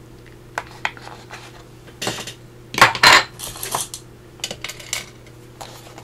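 Small metal paper clips clinking as a few are picked out, a series of light clicks and clinks with the loudest about three seconds in.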